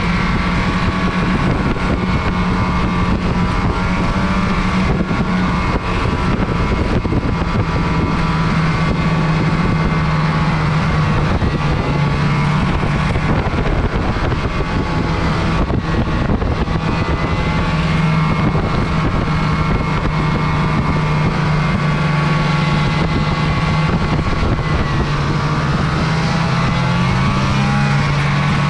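Snowmobile engine running steadily under way, its pitch shifting a little with the throttle, over a constant rush of noise.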